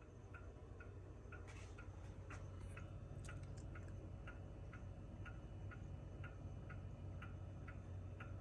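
Antique pendulum wall clock ticking faintly and evenly, about three ticks a second, with a low steady hum underneath.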